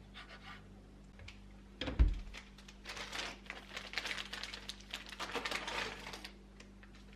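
Kitchen preparation sounds: a single heavy thump about two seconds in, followed by a few seconds of rapid crinkling and clicking that stops near the end.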